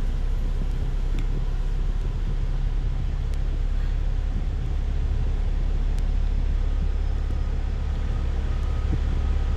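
Steady low rumble of a moving bus's engine and tyres, heard from inside the passenger cabin.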